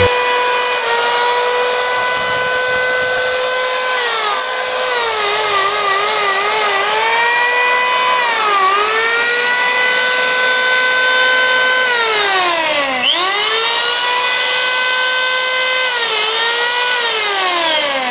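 J.C.K. (J.C. Kawasaki) 8210 electric hand planer's motor and cutter drum running without load, a steady high whine. Its pitch dips and wavers several times, drops sharply and spins straight back up about 13 seconds in, and falls as the motor winds down near the end.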